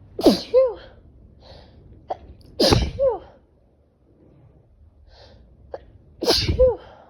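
A woman sneezing three times, about three seconds apart. Each sneeze is a sharp burst trailing off into a falling voiced tail. This is an allergic sneezing fit set off by a pet allergy.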